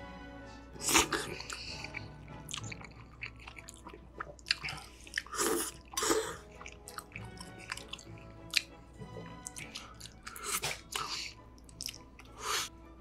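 Slurping and chewing of cheese-covered tteokbokki, with loud slurps about a second in, twice around five to six seconds in, and near the end, over soft background music.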